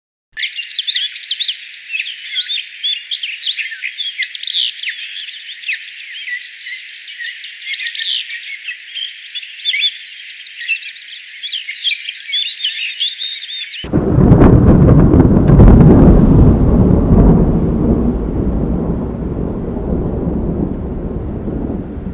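A dense chorus of many songbirds chirping and singing, cut off abruptly about 14 seconds in by a loud, deep rumble that slowly fades.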